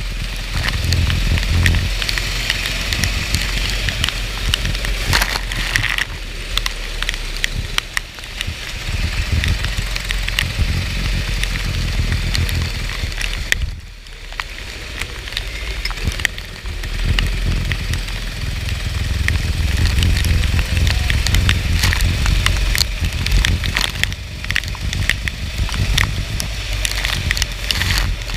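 Go-kart engine running under heavy wind and spray noise, with many sharp crackling clicks from rain on a wet track. The sound drops briefly about halfway through, then builds again.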